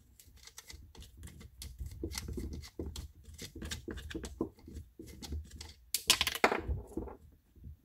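Short clicks and rattles of the plastic housing parts and metal bolts of a dismantled air diaphragm pump being handled, with a louder clatter about six seconds in.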